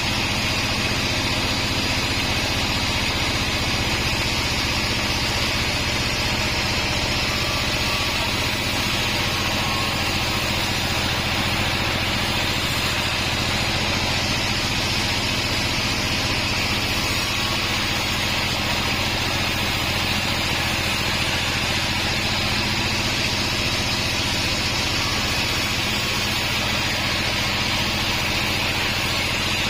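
Band sawmill running steadily: a constant machine hum with an even high-pitched noise over it and no breaks or changes.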